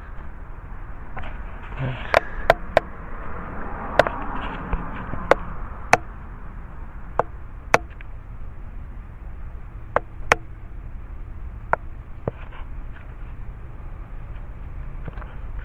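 Sharp, irregular clicks and knocks, about a dozen scattered through the first twelve seconds, from the camera and its mount being handled and adjusted, over a steady low background rumble.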